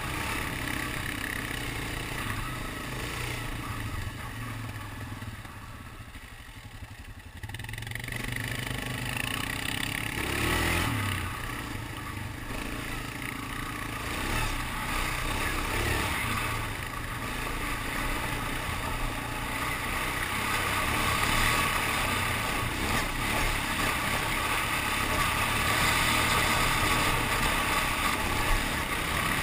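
ATV engine running under way over a rocky dirt trail, with the machine clattering over the rough ground. The engine eases off for a couple of seconds about five seconds in, then picks up again and grows louder toward the end.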